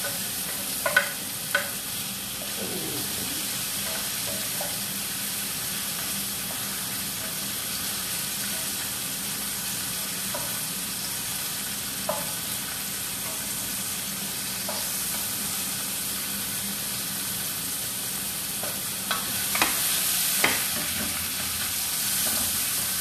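Potatoes, green chili and white onion sizzling as they fry in oil in a pan, stirred with a wooden spatula. There are occasional sharp clicks of the spatula against the pan, and the sizzle grows a little louder near the end.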